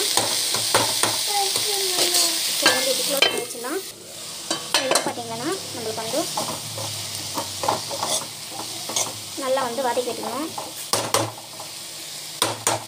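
A metal spoon stirs and scrapes mint leaves, tomato and onion around an oiled frying pan while they sauté, with the oil sizzling. The sizzle is loudest for the first few seconds and then fades, leaving scattered scraping strokes against the pan.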